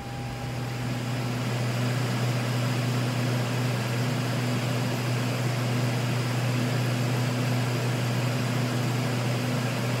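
Airbus A330 airliner in cruise, heard from inside the aircraft: a steady, even rush of airflow and engine noise over a steady low hum. It builds over the first second or so.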